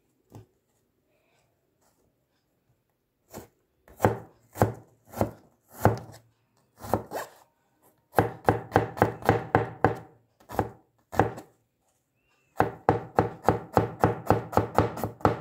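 Stainless steel cleaver chopping onion on a plastic cutting board: starting about three seconds in, a few separate chops, then two quick runs of about five chops a second.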